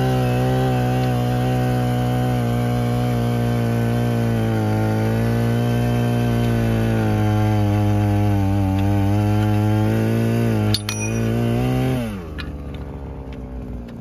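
62cc earth auger's petrol engine running at a steady speed, its pitch wavering slightly. A click comes near the end, then the engine speed drops sharply and it runs much quieter.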